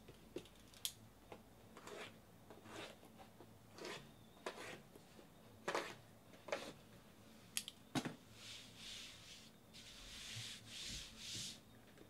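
Faint handling of a stack of sealed cardboard trading-card boxes: scattered light taps and clicks, then a run of scratchy rustles about eight seconds in.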